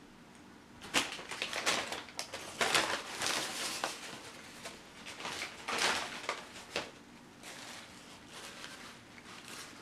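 Brown paper takeout bag crinkling and rustling as it is handled, in irregular bursts that are loudest in the first two-thirds, then fainter rustles near the end.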